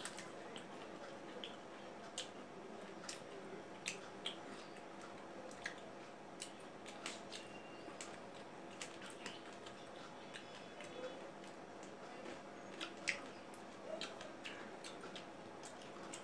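Two people eating pieces of cut fruit: quiet chewing and biting with irregular small clicks and taps, over a faint steady hum.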